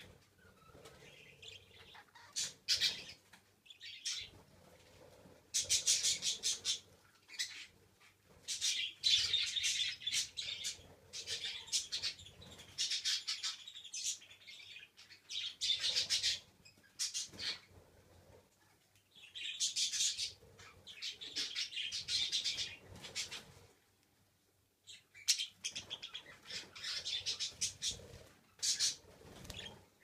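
Pet budgerigars (budgies) chirping and chattering in repeated high bursts, each lasting a second or two, with short pauses between.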